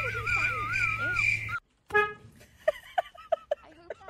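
A wavering high whine over a steady pulsing chirp, cut off about one and a half seconds in. Then a short car horn toot, the loudest sound, followed by a person's voice.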